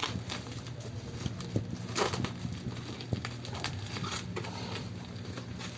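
Parcel packaging being handled and opened: scattered taps, clicks and short rustles, with a longer rustle about two seconds in, over a steady low hum.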